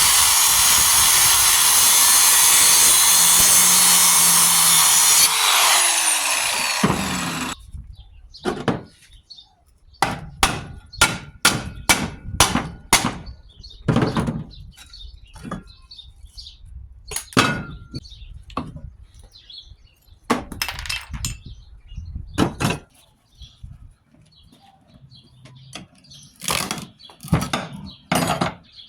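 A power tool running hard on the compressor, winding down and stopping about seven seconds in. Then comes a long series of separate knocks and clanks, some ringing briefly, as the metal casing and parts are struck or handled.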